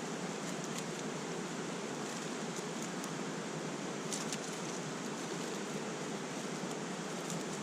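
Steady rushing of a mountain stream, with a few faint high ticks, a cluster of them about four seconds in.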